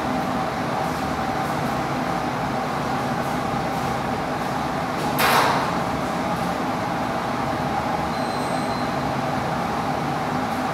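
Steady mechanical hum of flow-loop lab equipment running, with a few constant low tones. About five seconds in there is a short burst of rushing noise.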